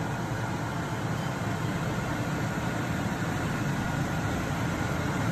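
Steady low mechanical hum, even and unbroken.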